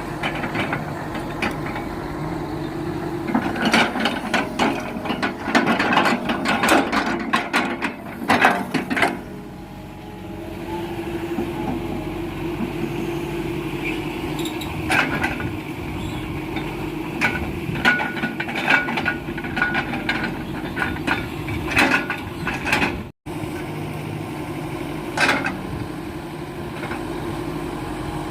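Diesel engine of a hydraulic excavator running steadily while it handles rubberwood logs, with repeated knocks and clatter of logs and machinery over the engine.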